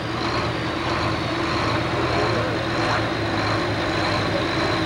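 John Deere farm tractor's engine idling steadily.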